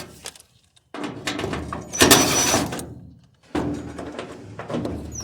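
Screws being taken out and metal parts of a gas clothes dryer being handled: scraping and clattering in two spells, the first the louder.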